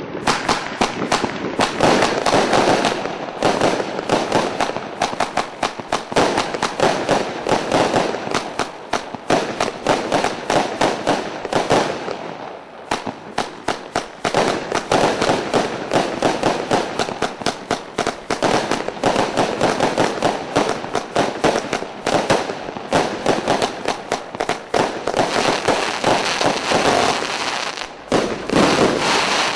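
Zena 1331 Sirius multi-shot firework cake firing: a rapid, continuous string of launches and aerial bangs. It eases briefly about halfway through, and a last loud volley comes near the end.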